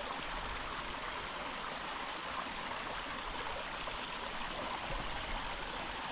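A small stream flowing steadily, an even rushing and trickling of water.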